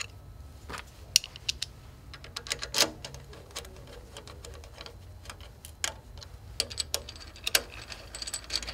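Irregular metallic clicks and taps of a hand tool working the screw of a handlebar bracket on a long-arm quilting machine, the screw being tightened back down.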